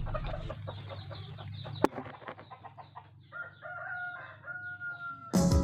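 Chickens clucking, with a sharp click a little under two seconds in, then a rooster crowing: a long call held for about two seconds, sinking slightly at the end.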